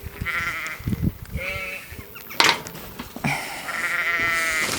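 Sheep bleating: three quavering bleats, the last one longest, near the end. A single sharp click comes about halfway through.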